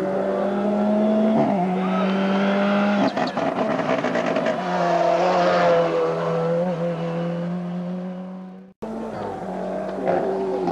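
Rally car engine running hard through a bend, its pitch falling and rising with the throttle and gear changes, with a burst of sharp crackles about three seconds in. Near the end the sound breaks off for an instant, then an engine is heard again.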